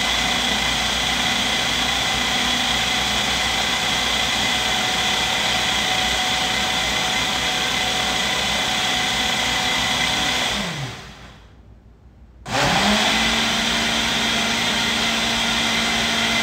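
Ninja countertop blender's motor running steadily, blending a smoothie on a preset frozen-drink setting. About ten and a half seconds in it winds down and stops for a second or two, then spins back up and runs steadily again.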